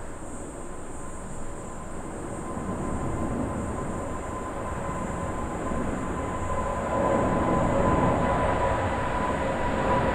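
Boeing 777-300ER's twin GE90-115B turbofan engines at takeoff thrust during climb-out: a jet roar with a steady whining tone, growing louder as the plane comes closer.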